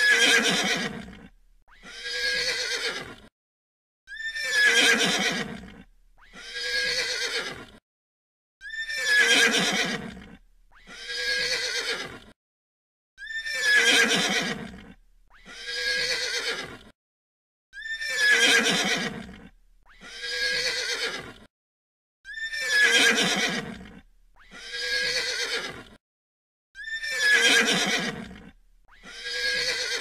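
Horse whinnying over and over. The calls come in pairs about two seconds apart, and each pair repeats every four and a half seconds with the same shape each time. Each call is about a second and a half long, starting high and falling away.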